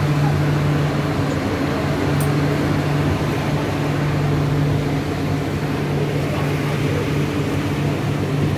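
Steady hum inside a rubber-tyred medium-capacity metro car standing at the platform, with two held low tones over an even rush of air: the car's air-conditioning and onboard equipment running while it waits for the doors to close.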